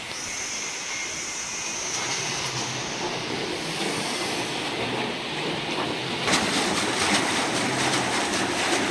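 Water splashing and spraying through the perforated stainless-steel drum of a vegetable washer as it turns, a steady rushing noise. About six seconds in it grows louder and harsher.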